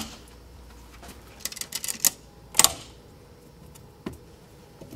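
Clicks and clacks of a wall payphone being handled: a sharp click as the handset is taken, a quick run of clicks about a second and a half in, then a louder single click and another near the end.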